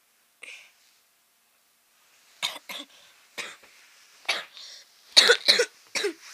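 A person coughing: one faint short cough about half a second in, then a run of short, sharp coughs from about two and a half seconds on, loudest a little after five seconds.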